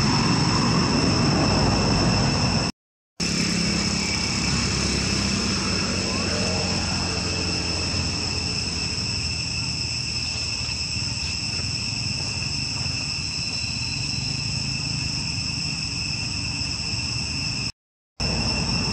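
Steady, high-pitched insect chorus, a shrill drone held at two pitches, with a low rumble beneath it for the first few seconds. The sound cuts out completely twice for a moment, about three seconds in and near the end.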